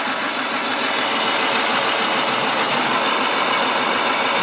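Chinese mini-lathe running steadily, its motor and spindle turning a long pipe held in a steady rest of three ball bearings; the sound swells slightly about a second and a half in.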